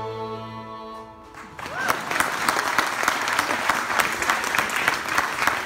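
The last notes of a Swiss Appenzell string band (hackbrett dulcimer, violin, accordion and double bass) ring out and die away within about the first second. About a second and a half in, the audience breaks into steady applause.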